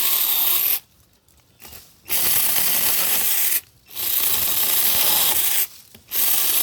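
24-volt cordless mini chainsaw with a 4-inch bar run in four bursts, its chain cutting through brush branches. There are short pauses between the bursts, the first about a second long.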